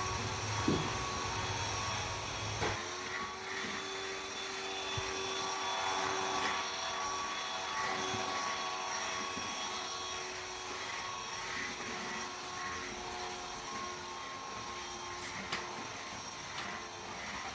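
A small electric motor whirring steadily, its pitch wavering slightly, with a few light clicks; a deeper hum underneath stops abruptly about three seconds in.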